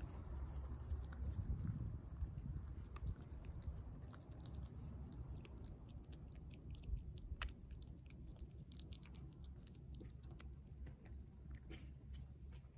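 A tabby cat chewing raw fish: a faint, irregular run of small clicks and crunches as it bites and chews.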